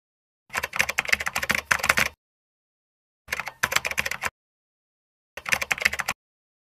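Keyboard-typing sound effect: rapid key clicks in three bursts, the first about a second and a half long, the second about a second, the last under a second, with dead silence between.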